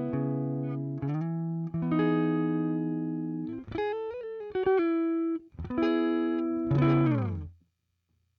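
Electric guitar played through a Zoom G2 Four's Fender Deluxe Reverb amp simulator: ringing chords and single notes, some bent so their pitch wavers, then a chord sliding down in pitch that cuts off abruptly near the end.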